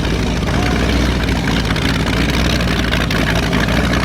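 Speedboat engine running steadily: a loud, even drone with a low hum.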